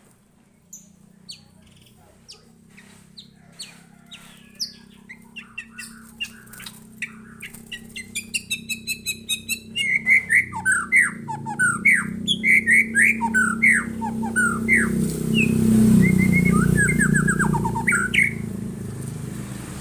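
White-rumped shama (murai batu) singing: sparse clear notes at first, a fast run of rapid repeated notes about eight seconds in, then loud, varied whistled phrases. A low rumble builds underneath in the second half.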